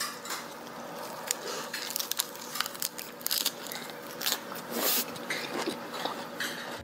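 Close-up mukbang eating sounds: a person biting into and chewing a green leafy wrap (ssam), giving a quick, irregular run of crisp crunches.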